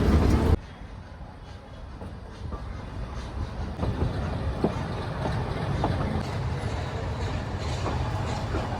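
Nilgiri Mountain Railway train running, heard from aboard: a low rumble with occasional sharp wheel clicks, slowly growing louder. A much louder rumble cuts off suddenly about half a second in.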